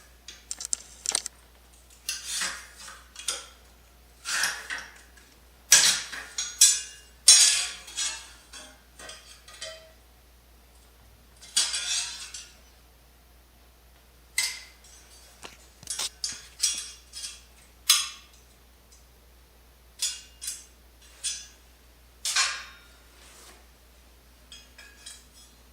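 Metal tool rack being handled as its tabs are pushed through from the back and bent: irregular clinks, clanks and short scrapes of metal on metal, with pauses between them.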